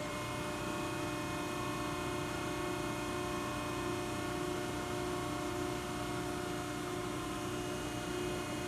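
Cincinnati 90CBX6 CNC press brake running under power at idle, not cycling: a steady machine hum with several constant tones over an even hiss.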